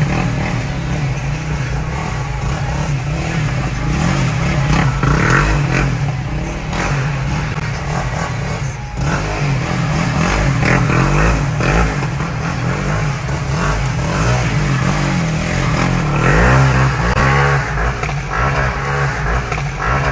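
Yamaha Raptor 700R quad's single-cylinder four-stroke engine revving up and down as it is drifted on the road, heard from inside a following car.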